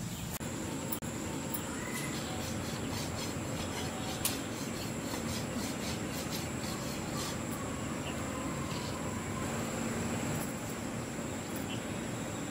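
Insects chirring in a steady, even high drone over a low background rumble, with a few faint clicks.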